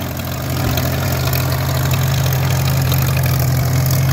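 1944 Farmall A tractor's four-cylinder engine running steadily under a light throttle as the tractor is driven. It gets slightly louder about half a second in.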